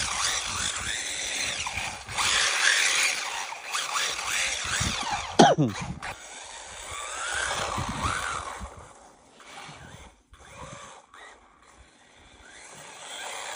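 JJRC Q141 RC truck's small electric motor whining as the truck drifts and accelerates on icy snow, its pitch rising and falling with the throttle, mixed with tyre noise. It fades away in the second half as the truck drives off.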